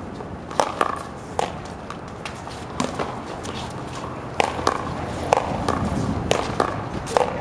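Paddleball rally: a quick, irregular series of sharp knocks as paddles strike the rubber ball and the ball smacks off the concrete wall and court, about a dozen hits with the densest run in the second half.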